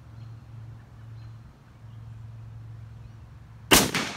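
A single shot from a lever-action rifle chambered in .356 Winchester, firing a 200-grain flat-nosed bullet, about three and a half seconds in, with a short echo trailing off after the crack.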